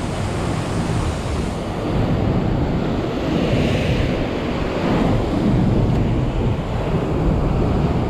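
Ocean surf breaking and washing over a rock shelf, with wind buffeting the microphone; one wash swells up about halfway through.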